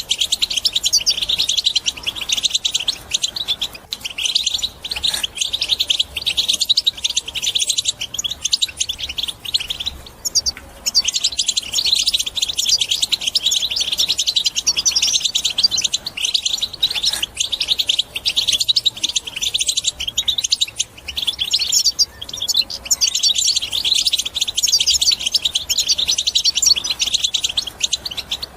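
European goldfinch song: fast, continuous twittering and trilled chirps, broken by a few short pauses.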